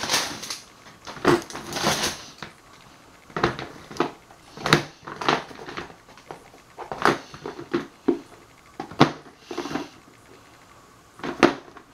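Irregular clicks and knocks of small bottles and containers being handled and set down on a work surface, roughly one a second.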